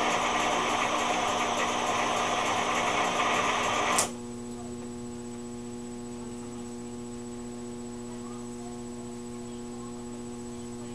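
Emergency light bar's rotating lights running, a dense mechanical whirring and rattling of the rotator motors and gears, which stops suddenly with a click about four seconds in as the bar is switched off. A steady electrical hum remains.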